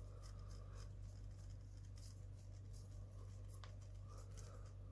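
Faint scratching, rustling and small clicks of hands handling a plastic Mini 4WD chassis and fitting small parts to it, over a steady low hum.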